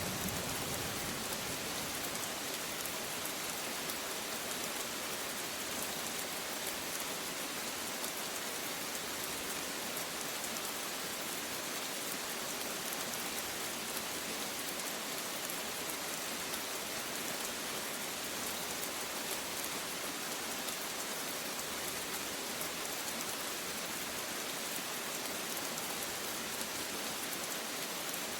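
Steady rain falling, an even hiss of many drops that holds the same strength throughout.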